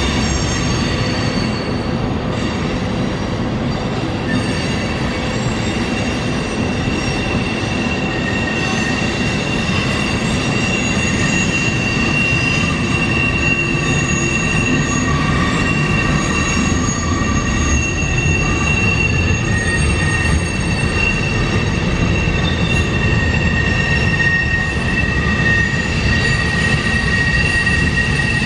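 Empty tank cars of a freight oil unit train rolling past: steady rolling noise topped by high-pitched wheel squeal, several held squealing tones at once.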